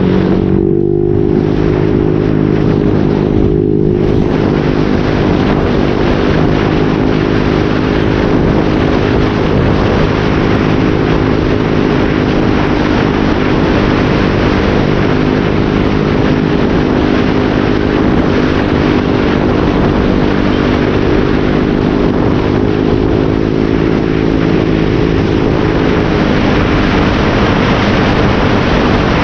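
Motorcycle fitted with an SC Project aftermarket exhaust and modified elbow, running under way with the muffler insert in. The exhaust note rises in the first second, holds steady for most of the ride, then drops as the bike slows near the end.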